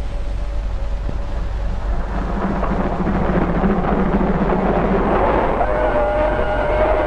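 Train passing close by at speed: a loud, steady rushing rumble of wheels on rails that builds from about two seconds in.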